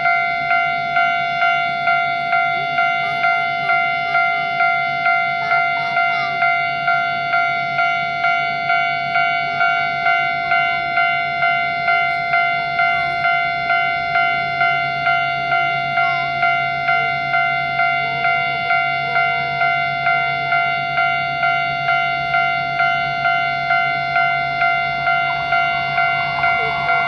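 Japanese railway level-crossing alarm bell ringing steadily, its electronic ding repeating about twice a second as a warning that a train is approaching.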